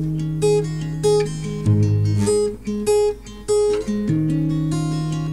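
Acoustic guitar playing an instrumental break of a song: evenly repeated picked notes over a changing bass line.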